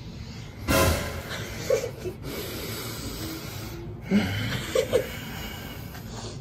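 A short rustle of a phone being handled and swung round about a second in, then a few brief, low grunts and breaths from a man.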